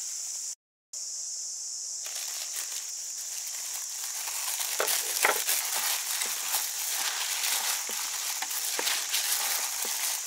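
Cooked rice being mixed and squeezed by a hand in a disposable plastic glove in a steel bowl: a crackling rustle of glove and rice with many small clicks, growing busier about four seconds in. Under it runs a steady high-pitched insect drone.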